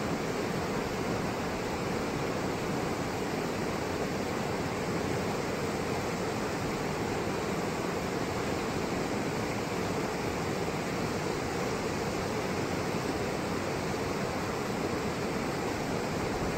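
Fast mountain river rapids, water rushing and splashing over boulders in a steady, even roar.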